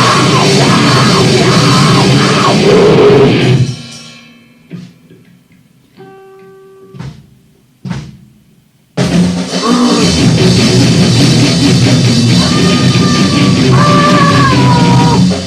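Lo-fi noise rock with distorted guitar and a pounding drum kit, cutting off abruptly about four seconds in. A quiet gap follows with a few clicks and one short held note, then the full band crashes back in about nine seconds in.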